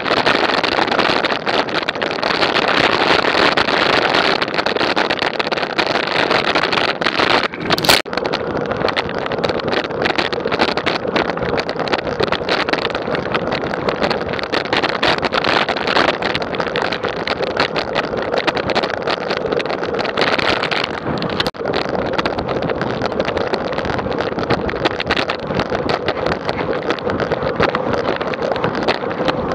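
Wind rushing over an action camera's microphone while riding at speed: a loud, steady rushing noise with road noise mixed in, and one sharp knock about eight seconds in.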